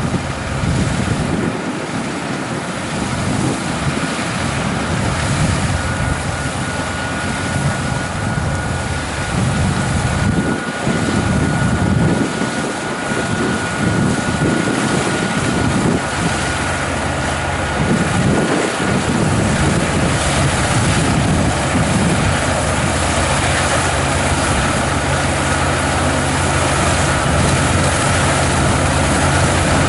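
Combine harvester running steadily in a wheat field, a steady engine hum with a thin high whine over it. Wind buffets the microphone in gusts through the first two thirds.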